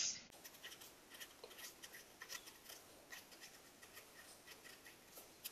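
Felt-tip marker writing on paper: a run of faint, quick scratchy strokes as words are written out.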